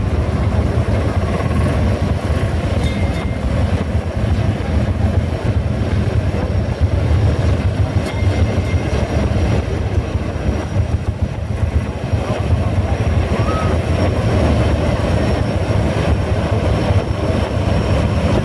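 Kirovets K-700A tractor's V8 diesel engine running steadily as the tractor drives past, a continuous low rumble.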